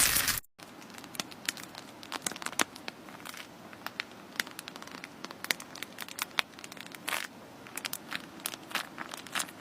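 Slime being squeezed and handled, giving a run of many small, sharp crackling pops and clicks at an irregular pace. It follows a louder crinkling noise that cuts off abruptly about half a second in.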